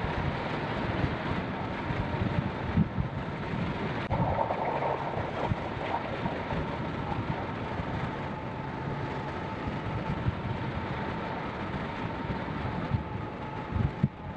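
Steady rush of airflow buffeting the microphone of a camera mounted on a hang glider in flight, with uneven low gusts.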